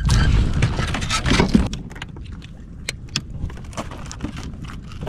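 Handling noise as a netted fish is brought aboard a plastic kayak in a rubber landing net: loud knocking and rustling for the first second and a half or so, then sparse small clicks and taps as the fish is gripped.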